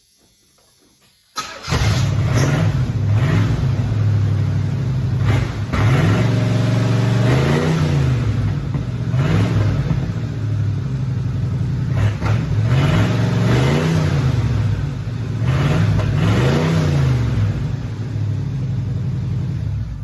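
A 1985 Camaro Z28's carbureted 5-liter V8 starts about a second and a half in and runs loud and open, with no exhaust behind the catalytic converter. It is revved in repeated short blips, about seven, dropping back to idle between them.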